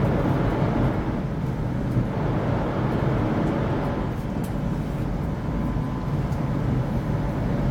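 Steady rumble and rush of a Chinese CRH high-speed train running at speed, heard from inside the passenger car. It is a little louder over the first two seconds or so.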